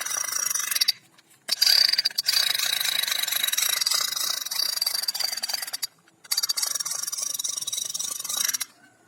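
A black toy gun's electronic firing sound effect: a harsh, rasping rattle in three spells, the middle one the longest, with short silences between them.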